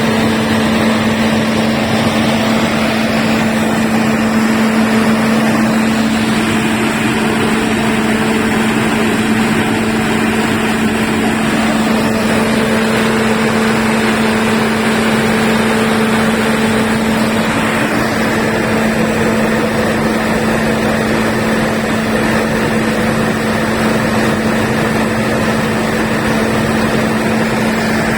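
Diesel generator running steadily at constant speed, an even drone with a steady hum that does not change.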